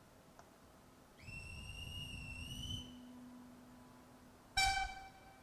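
A railway platform whistle blown once for about a second and a half, its pitch rising slightly, then a faint low steam locomotive whistle, and near the end a short, loud, high-pitched call, the loudest sound.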